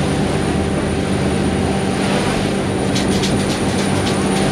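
Chao Phraya Express orange-flag river boat's diesel engine running steadily under way, heard from inside the open passenger cabin together with the rush of water and wind along the hull.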